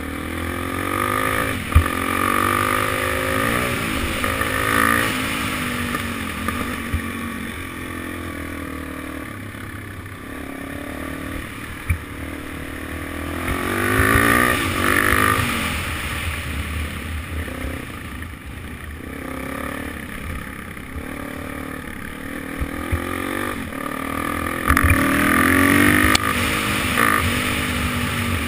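Suzuki DR-Z400SM's single-cylinder four-stroke engine under hard riding, rising and falling in pitch as it accelerates and backs off, with three main surges of acceleration. A few sharp knocks come through the chassis.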